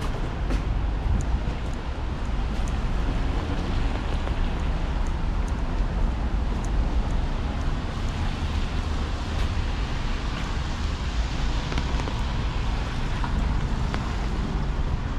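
Rainy city street ambience: a steady rush of traffic on wet roads, with a low wind rumble on the microphone.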